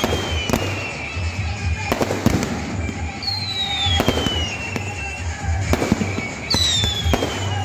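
Aerial fireworks going off in quick succession: repeated bangs and crackling from bursting shells, with three long whistles falling in pitch as whistling shells rise and burst.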